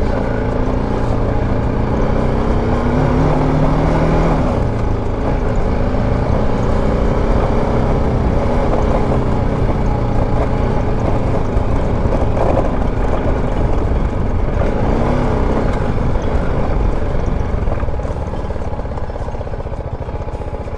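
BMW G310 GS's single-cylinder engine running along a rough dirt track, its pitch rising and falling as the throttle opens and closes.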